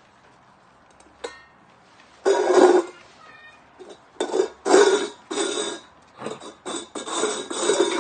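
A 10-week-old German Shepherd puppy attacking his emptied water bowl: a single click about a second in, then from about two seconds in a rapid string of short, loud, rough bursts as he goes at the bowl.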